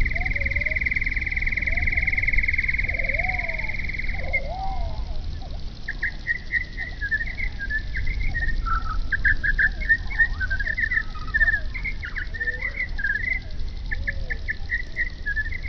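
A small songbird singing. First comes a long, even trill that stops about four seconds in. After a short pause it gives a varied song of quick, high notes in short phrases. Softer, lower calls chirp underneath.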